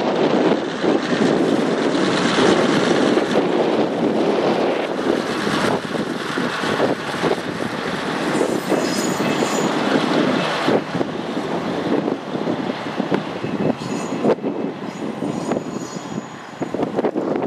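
Diesel railcar KiHa 2004 running along the track: engine and wheels on the rails, with many short clacks, slowly fading as it pulls away.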